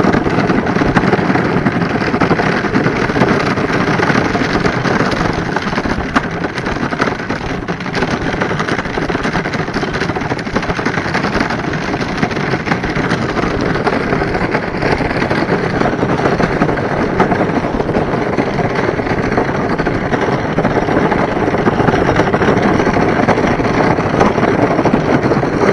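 Small wooden dog cart rolling on asphalt behind a trotting dog: a steady, rattling rumble from its wheels.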